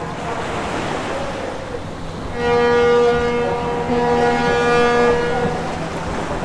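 A ship's horn sounds one long, steady blast of about three seconds, starting about two and a half seconds in, over a rushing hiss of wind and sea.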